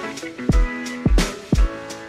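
Background music: a steady drum beat of kick drum and snare hits over sustained chords.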